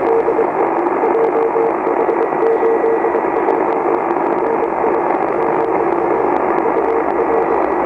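Shortwave amateur radio receiver's audio: a steady rush of band noise with a Morse code signal beeping on and off in dots and dashes, and a faint crackle of ticks.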